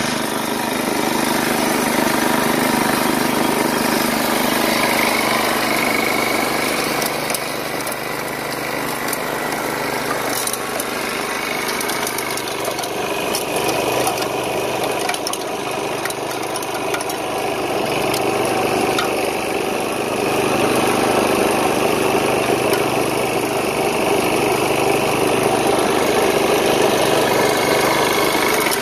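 8-horsepower Briggs & Stratton engine on a Montgomery Ward snowblower, running steadily with small rises and falls in level.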